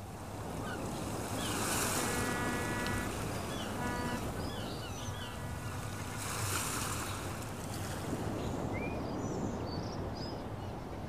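Ambience of waves washing on a shore with wind, surging twice. Scattered short high bird chirps sound over it.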